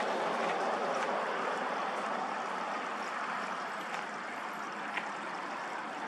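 Steady outdoor background noise, an even rushing hiss with no distinct source, and a faint click about five seconds in.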